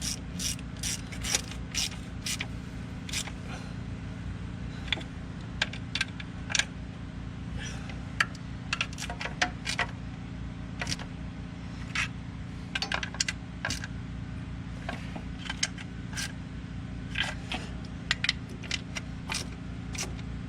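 Hand ratchet clicking in short, irregular spurts with metal clinks, as valve cover bolts are snugged down one after another. A steady low hum runs underneath.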